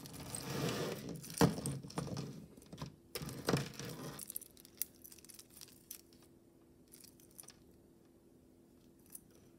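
Metal bead necklaces and chains jangling and clinking as they are picked through by hand, with a few sharp clicks. It goes quiet about four seconds in, leaving only faint occasional clicks.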